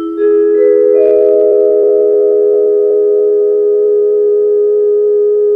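Background music: a held chord of steady tones, its notes coming in one after another during the first second and then sustained unchanged.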